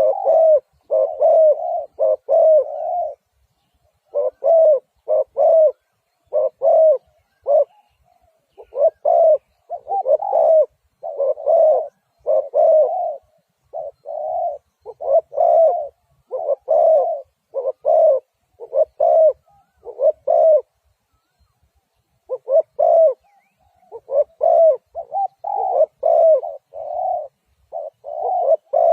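Spotted dove cooing: repeated phrases of low, throaty coos, with brief pauses about three seconds in and again about twenty-one seconds in. Near the end the coos run closer together.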